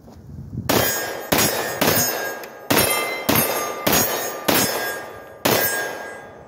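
Eight 9mm pistol shots fired at a steady pace from a Glock-pattern pistol with a linear compensator on the muzzle, each shot followed by a short metallic ring. The pistol cycles on every shot with 124-grain loads and a lightened 11-pound recoil spring.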